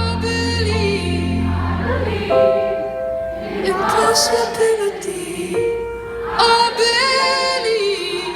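Live pop ballad: a woman singing long held notes with vibrato over sustained accompaniment, heard from the audience at a concert. A deep bass note under the chords stops about two seconds in.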